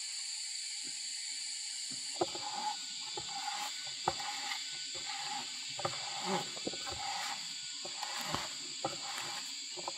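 Auger bit boring into a wooden log, making irregular crunching, creaking and clicking of cutting wood fibres that begins about two seconds in. Underneath runs a steady high insect drone.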